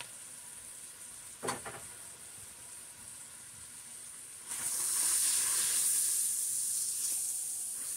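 Onions and vegetables sizzling in fat in a pot as flour is stirred in with a wooden spoon to start a roux. The sizzle gets louder about four and a half seconds in, when the stirring begins. There is a light knock about a second and a half in.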